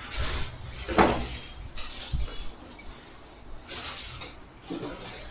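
Plastic carry bags and food packets rustling and being handled, with a sharp knock about a second in and a softer thump shortly after.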